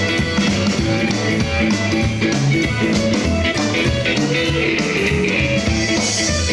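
Rockabilly band playing live, an instrumental stretch of a song: electric guitar over a steady drum beat.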